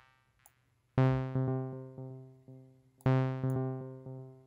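Low sawtooth-type note from Ableton's Wavetable software synthesizer, played twice, about a second in and about three seconds in. Each note decays through a trail of quieter echoes from a delay effect.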